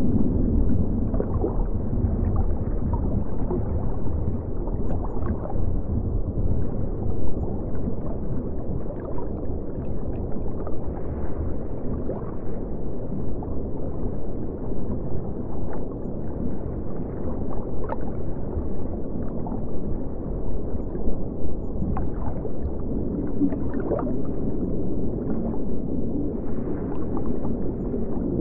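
Underwater ambience: a steady low rush of water noise with scattered faint clicks and pops.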